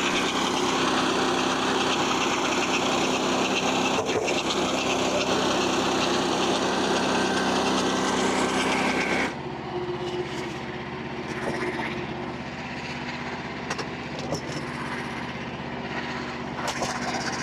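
Portable bandsaw sawmill running steadily as it saws through a big red oak log. Its exit-side blade-guide bearing has gone out. About nine seconds in the sound drops suddenly and the mill keeps running quieter.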